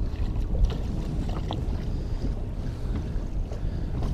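Wind rumbling on the microphone, with small waves lapping against the boat's hull.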